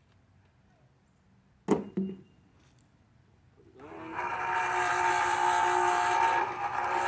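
Two sharp knocks, then a small electric oil transfer pump starts about four seconds in and runs steadily with a hum and whine, pumping engine oil from a bucket through a hose into the engine's fill.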